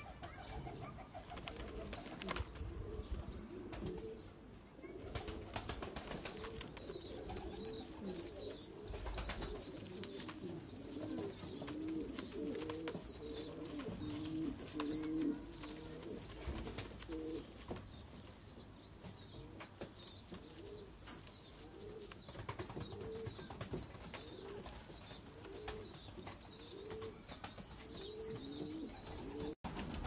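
Domestic pigeons cooing over and over, several coos overlapping.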